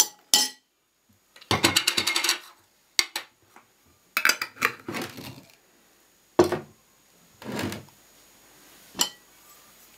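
A metal screw lid is twisted onto a glass pickle jar in a run of rapid clicks. Then come several separate clinks and knocks as glass jars and metal lids are handled and set down on the table.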